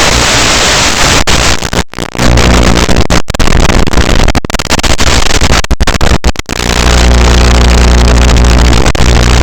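An FPV drone's motors running loud and steady, cutting out sharply for a moment several times in the middle.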